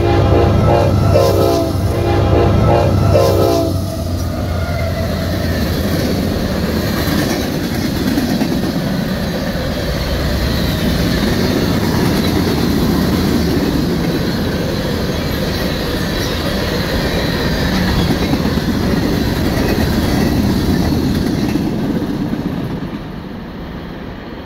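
Norfolk Southern freight locomotive's horn sounding at a grade crossing, cutting off about four seconds in. Then the train's hopper cars roll past with a steady rumble and clickety-clack of wheels on the rails, fading near the end as the train draws away.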